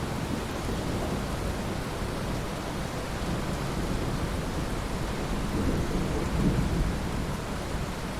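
Steady rain falling, with low rolling thunder rumbling beneath it that swells twice, once at the start and again past the middle.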